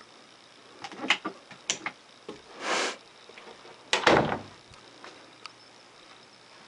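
An interior closet door being handled and closed. A few light latch clicks about a second in and a short swish lead to a thud about four seconds in as the door shuts.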